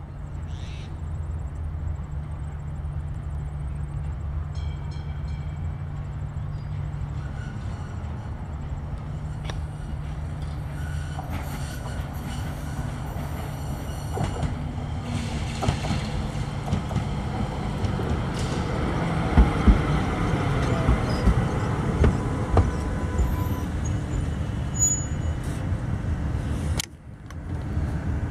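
A Melbourne tram approaching along the track and passing close by. A steady low hum of the running tram grows louder, with sharp clacks of the wheels over rail joints and a falling whine as it goes past.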